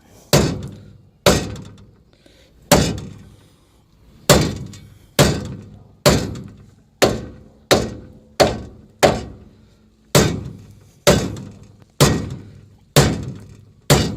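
Hammer blows on a rust-seized steel trailer hitch insert in its receiver, about fifteen even, moderate strikes roughly one a second, each ringing briefly. The metal is being driven to break the rust loose, and the insert is just starting to move.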